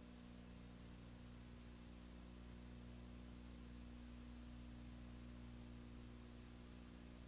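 Near silence with a steady low electrical hum and a faint high-pitched whine over light hiss.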